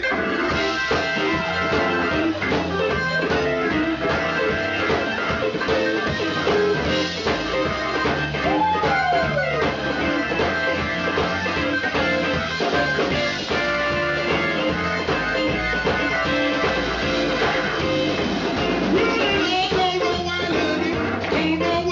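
Live blues band playing an instrumental stretch on electric guitar, organ and drums. About eight seconds in, one note bends up and falls back.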